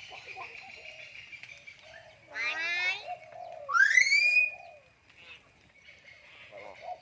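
Myna calling: a harsh warbling call about two seconds in, then a loud whistle that rises and levels off, over fainter bird calls.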